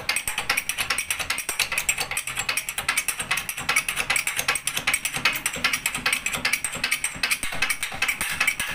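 Hydraulic shop press being pumped, a fast, steady clicking, as the ram presses a new front wheel bearing into the hub.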